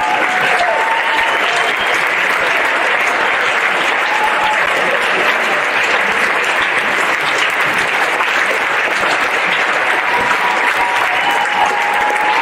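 A large audience applauds steadily and loudly, with scattered whistles and cheers on top, as a standing ovation.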